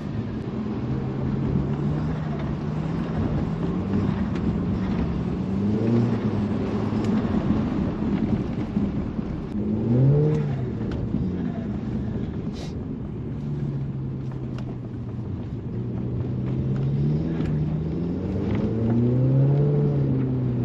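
Audi A4's TFSI turbocharged four-cylinder engine and exhaust, fitted with a high-flow catalytic converter and 3-inch downpipe, heard from inside the cabin with the windows up while driving. The engine pitch rises and falls several times, with a quick rev up and down about halfway through and a longer climb near the end.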